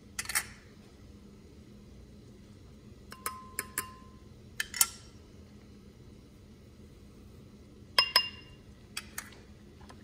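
Small spice dishes clinking and tapping against the rim of a glass mixing bowl as spices are tipped in: a few sharp clinks in clusters near the start, around the middle, and about eight seconds in, one of them ringing briefly.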